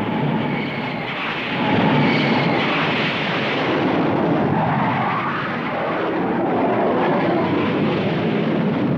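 Jet aircraft engines during launches from an aircraft carrier's flight deck: a loud, steady rush of engine noise with a faint whine that shifts in pitch.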